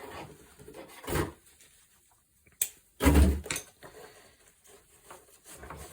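Plastic side-release buckles on a backpack's straps being unclipped by hand: a few short clicks and knocks, the sharpest about two and a half seconds in and the loudest just after three seconds.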